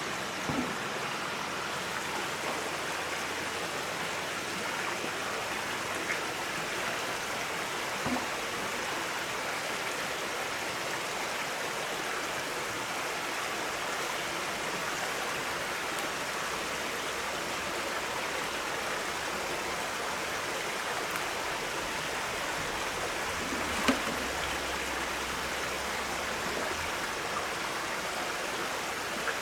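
Steady rush of flowing floodwater, with a few brief faint knocks, the sharpest a few seconds before the end.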